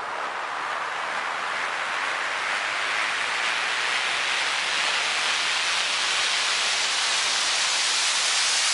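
Steady hiss of noise that swells gradually louder and brighter over several seconds, a rising noise sweep used as a transition effect.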